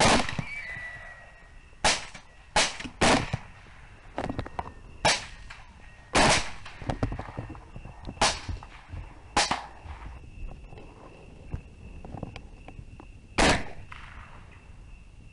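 Rifles firing an irregular string of shots at a group of hogs, opened on a countdown: about nine loud shots spread across the span, with fainter ones between them. A steady high insect chirp runs underneath.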